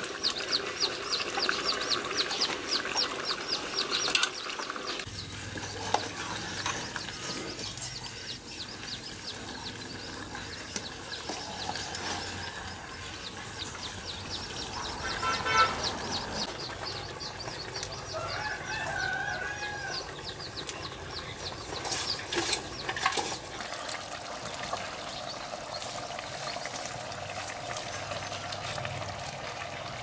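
Chickens clucking, with a fast clicking rattle in the first few seconds and a few sharp clicks a little over two-thirds of the way through.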